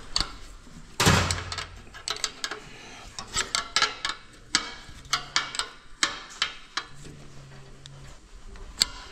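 Hand tools and metal engine parts clinking and tapping, with one loud knock about a second in followed by a scatter of quick, sharp clicks.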